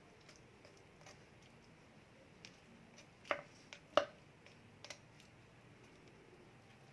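A few sparse, light clicks and knocks of kitchen utensils on a work surface while preparing chicken wings, the two loudest about three and four seconds in.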